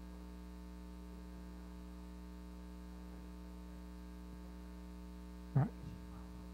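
Steady electrical mains hum from the sound system, a low buzz with evenly spaced overtones. One short sound cuts in briefly about five and a half seconds in.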